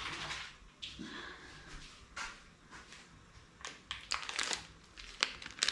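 Handling noises in a small kitchen: scattered clicks and knocks, with short rustles that grow busier over the last two seconds or so, like packaging being picked up and crinkled.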